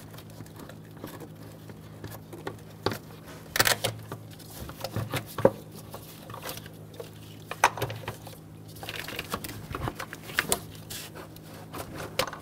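Plastic air filter housing and rubber intake tube being handled and pushed into place on the engine: scattered light knocks, taps and rustles at an uneven pace, a few of them sharper, over a low steady hum.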